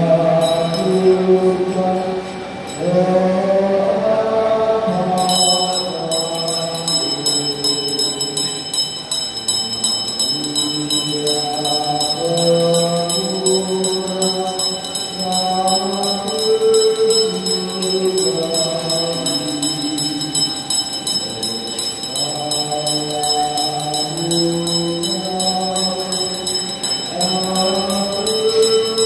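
Sung funeral chant: a slow melody moving step by step. About five seconds in, a small handbell starts being rung rapidly and steadily and keeps ringing under the chant.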